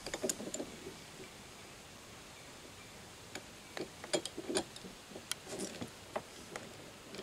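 Light, irregular clicks and knocks of wood and metal as a wooden shift handle is handled and set into a steel bench vise: a short cluster at the start, a pause of a couple of seconds, then a string of separate knocks.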